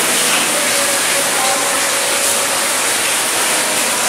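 Steady rush of running water, with a faint low hum beneath it.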